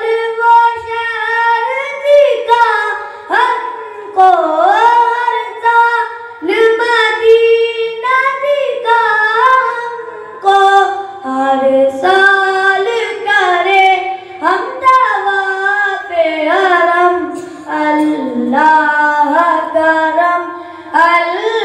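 Naat sung unaccompanied by a boy in a high voice, long ornamented phrases with notes that slide and bend, broken by short breaths.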